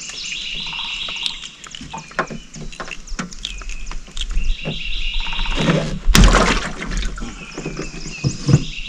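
Birds chirping and calling over a string of short knocks and clicks from handling on a boat, with one louder rush of noise a little after six seconds.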